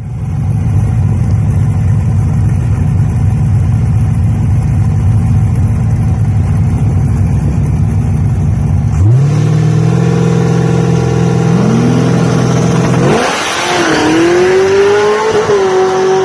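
Two boosted Camaro drag cars, one procharged and one turbocharged, idling with a steady low rumble, then revved up and held at high revs on the line. About thirteen seconds in they launch hard: the engine pitch shoots up with a rush of noise, then carries on at a high steady note as they pull away.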